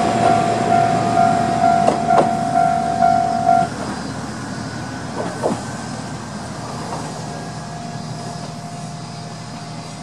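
Japanese level-crossing alarm ringing in a steady repeated electronic tone as a diesel railcar pulls away from the crossing, then cutting off suddenly about three and a half seconds in. A few clicks follow, and the railcar's running sound fades out.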